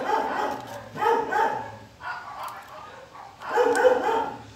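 A dog barking in repeated short bouts, roughly one bout a second, some bouts doubled.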